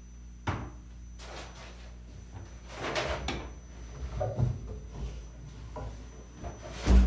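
Free-improvised percussion: sparse, irregular knocks and scrapes over a low steady hum. A longer scraping, cymbal-like wash comes about three seconds in, and the loudest hit, with a deep thud, comes near the end.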